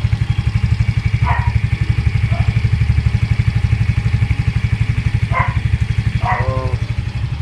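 Yamaha Mio Soul i 125 scooter's single-cylinder four-stroke engine idling steadily through its stock exhaust pipe, with an even low pulsing.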